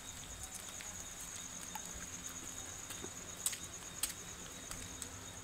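An insect trilling steadily and high-pitched, with a few sharp clicks, the two loudest about three and a half and four seconds in.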